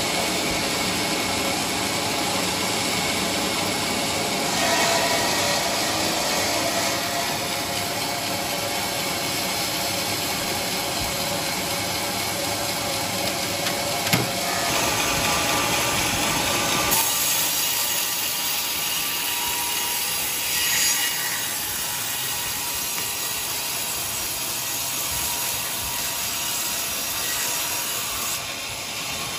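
Sawmill band saw running and cutting through a squared teak block fed past the blade on the log carriage, with a sharp click about halfway through.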